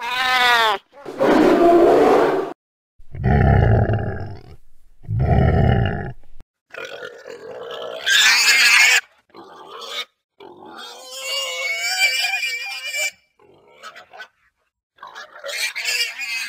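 A short animal call with a bending pitch and a few heavy noisy swells in the first six seconds, then a wild boar grunting and squealing in bouts, with its loudest squeal about eight seconds in.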